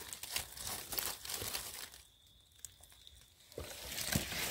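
Dry fallen leaf litter crackling and rustling as it is disturbed. About two seconds in the sound drops out abruptly to near silence for about a second and a half, then the rustling returns.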